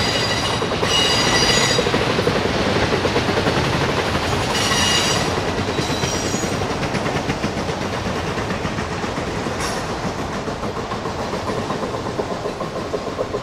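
Freight train of autorack cars rolling past, with a steady rumble and clatter of wheels on rail. The wheels give high squeals in short bursts near the start and again around five to six seconds in. Later the wheels click over the rail joints in a regular rhythm.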